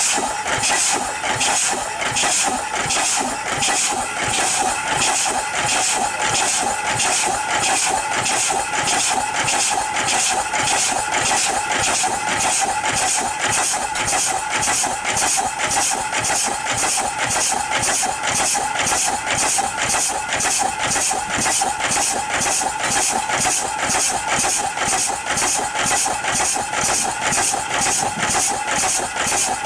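1880 Payne & Son horizontal steam engine running on steam: a steady rhythmic chuff of exhaust steam with a constant hiss, about two beats a second, quickening slightly as the flywheel gathers speed.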